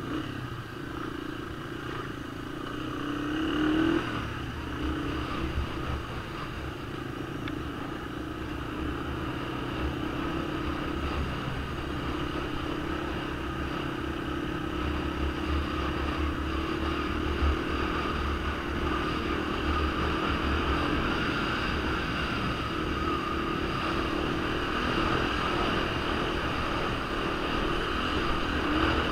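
Honda ATC 250SX three-wheeler's single-cylinder four-stroke engine running steadily while riding along a dirt trail, with a short rev about four seconds in.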